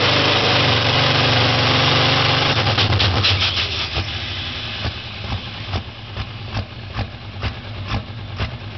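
A Ford tractor's diesel engine running flat out under heavy load as it pulls a weight sled. About three seconds in it surges briefly, then drops back to a much quieter, lumpy idle with a sharp knock every half second or so as the pull ends.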